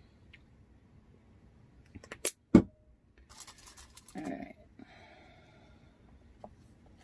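Quiet tabletop handling: a sharp click and then a single knock about two and a half seconds in, as the plastic paint bottle is put down, followed by light rustling as the piece is brushed.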